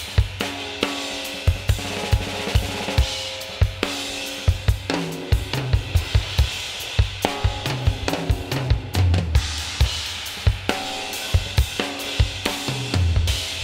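Soloed multitrack drum kit recording (kick, snare, toms, hi-hat and cymbals) playing a steady groove, run through a Tone Projects Unisum compressor set to grab the drums hard. Tom fills with falling pitch come about five and eight seconds in.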